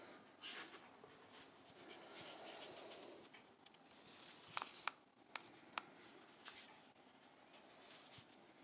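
Near silence: faint room tone with a few small sharp clicks about halfway through.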